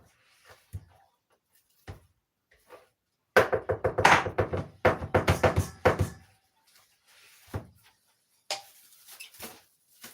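Cling film being pulled off the roll and stretched over a bowl: a few light knocks, then a loud, buzzy crackling about three seconds in that lasts about three seconds.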